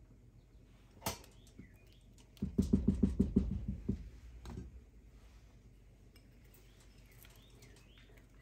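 A silicone spatula knocking and scraping in a pot of dal fry: a single click about a second in, then a quick run of soft, low knocks, about six a second, lasting a second and a half. The rest is faint kitchen room tone.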